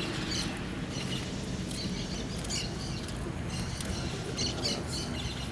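Outdoor ambience of small birds chirping in short, scattered calls over a steady low rumble of wind on the microphone.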